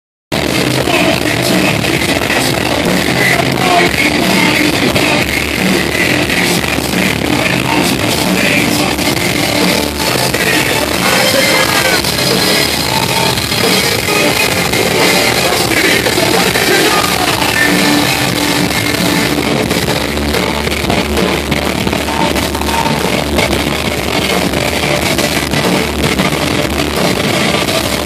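Live rock band playing loudly: electric guitar and drum kit, with a singer on vocals.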